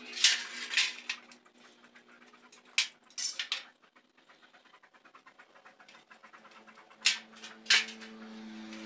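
A hand tool scraping and scratching across a flat sheet: a few short, loud rasping strokes, with quick faint scratching between them.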